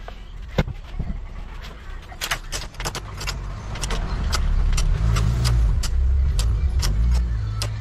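Sharp metallic clicks and clinks of hand tools working on the metal parts of a Tecumseh engine being taken apart, over a low rumble that swells about four seconds in.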